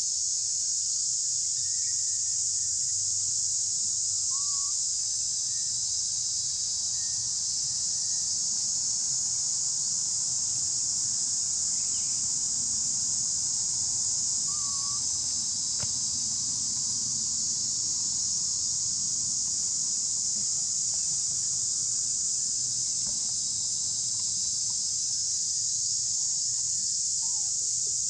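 Steady, high-pitched chorus of insects droning without a break, with a few faint short chirps now and then.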